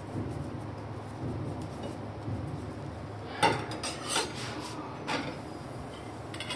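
Metal cookware clinking and knocking: a few sharp clinks against the iron tawa, the loudest about three and a half seconds in and lighter ones after, over a low steady background noise.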